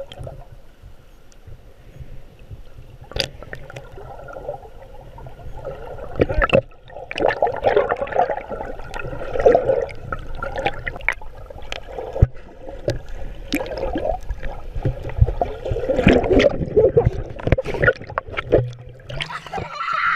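Muffled sloshing and gurgling of shallow water heard from underwater, with scattered knocks and clicks. Near the end it turns brighter and hissier as the sound comes up out of the water.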